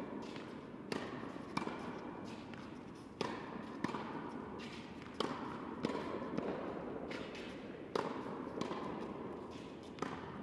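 Tennis ball being hit by a racket and bouncing on a hard indoor court during a practice rally: sharp pops in pairs, a pair about every two seconds, over a steady background hiss.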